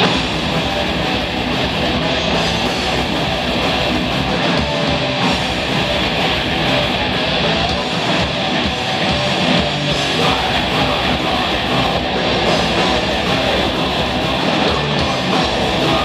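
Live heavy metal band playing a fast song: distorted electric guitars, bass guitar and drum kit, loud and steady throughout.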